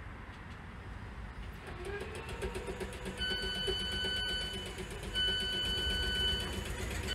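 Door-closing warning on a South Western Railway electric train: two long electronic beeps about a second and a half each, with a short gap between them, over the train's steady electrical hum.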